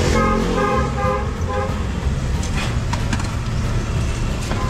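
A vehicle horn sounds in rapid short toots, about four a second, for the first second and a half, over a steady low traffic rumble. A few light clicks and knocks follow.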